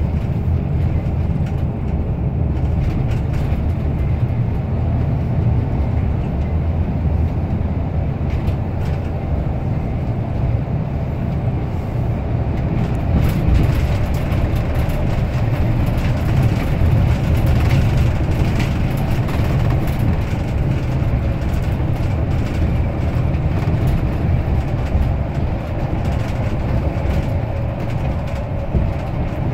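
Steady low engine and road rumble heard from inside a moving vehicle, with scattered faint ticks and rattles.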